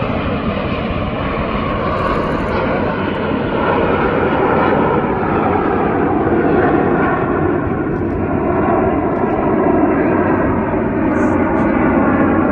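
Jet engines of the Snowbirds' CT-114 Tutor aircraft running steadily in flight, a continuous loud jet noise that grows a little louder from about four seconds in.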